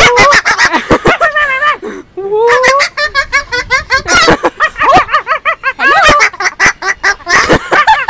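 Umbrella cockatoo babbling in a rapid, laugh-like chatter: a continuous run of short, wavering calls mixed with quick clicks, pausing briefly about two seconds in.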